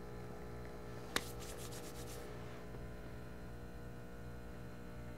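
Rocket Appartamento espresso machine's vibratory pump running with a low, steady hum while it pulls an espresso shot. A single sharp click about a second in.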